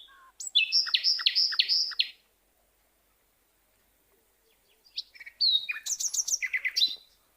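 A small bird chirping: two bursts of quick, repeated high-pitched notes, each lasting about two seconds, with a pause of a few seconds between them.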